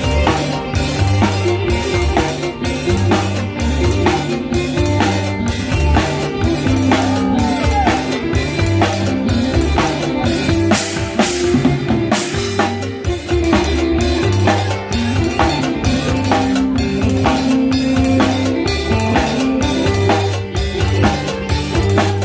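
Live Isan phin-style band music: a drum kit plays a driving, upbeat beat of kick drum, snare and rimshots under steady low bass notes and the melody of the phin, a Thai lute.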